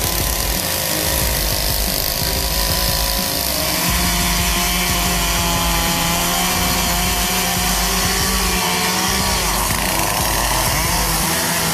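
Chainsaw engine running under load, its pitch rising and falling as it cuts.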